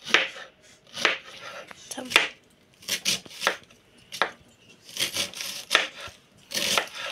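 Kitchen knife slicing red cabbage into thin shreds on a wooden cutting board: about nine short cutting strokes, roughly one a second.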